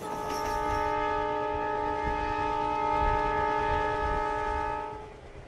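Diesel locomotive horn sounding one long steady blast, a chord of several tones, over the low rumble of the moving train. The blast fades out near the end.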